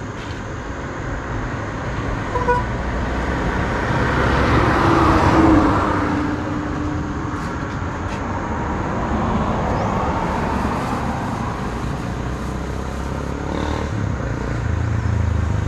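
Road traffic passing: a vehicle swells up and fades away about four to six seconds in, and another goes by more faintly around ten seconds, over a steady low rumble.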